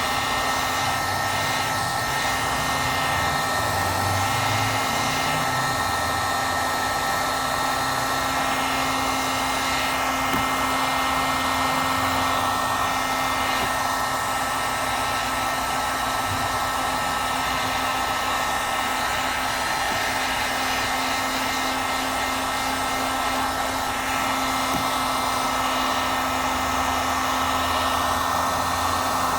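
Heat gun running steadily on its low setting, blowing hot air with a constant whirring hum, to soften the adhesive under a cracked smartphone screen glass.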